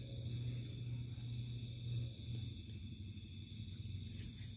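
Night insects trilling steadily, with a run of short high chirps about two seconds in, over a low steady hum.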